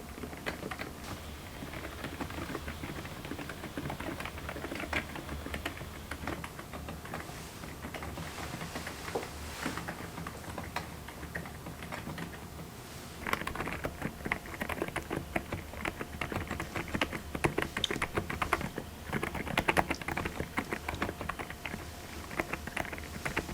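Mechanical keyboard fitted with silent 'Sea Salt' switches, being typed on in a steady stream of muted keystrokes. The typing gets faster and louder about halfway through.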